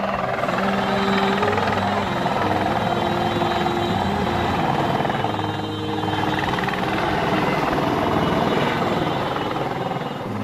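Eurocopter EC130 light helicopter coming in low to land, its rotor and turbine running loud and steady.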